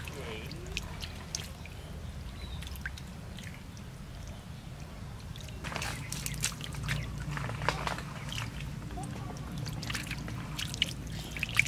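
Fish thrashing in shallow muddy water: splashing and sloshing with dripping, coming in clusters about six seconds in and again near the end, over a low steady hum.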